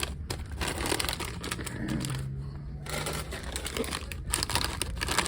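Plastic snack wrappers crinkling in irregular bursts as packaged snacks are handled and loaded into a vending machine, over a low steady hum.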